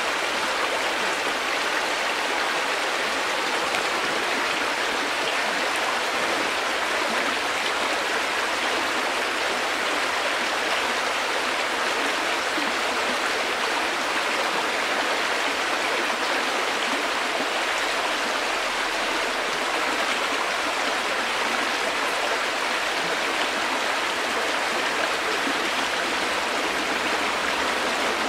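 River water flowing over rocks, a steady rushing babble that keeps an even level throughout.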